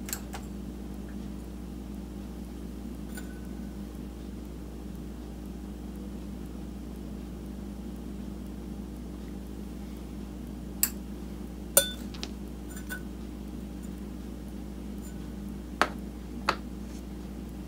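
A few light clinks of glass, a whisky tasting glass being handled as drops of water are added to it: four close together about two-thirds of the way through and two more near the end, over a steady low room hum.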